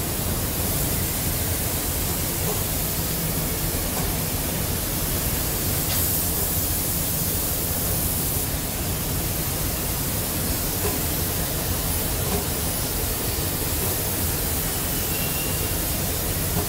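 Steady hiss and rush of air from a robotic spray-painting booth as a robot arm spray-paints a tractor chassis, with a steady low hum underneath.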